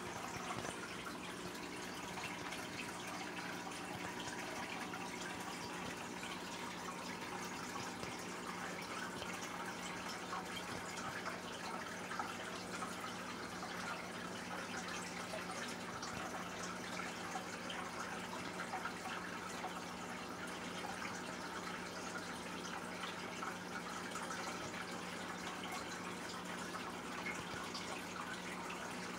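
Aquarium filter running: a steady trickle and splash of water with a constant hum underneath.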